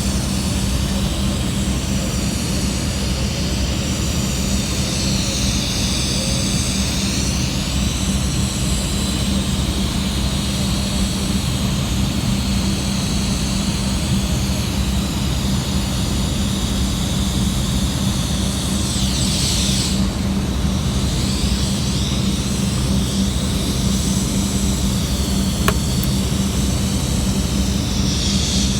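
Steady machine drone with a constant low hum and faint high whines that slowly waver in pitch, and a single short click near the end.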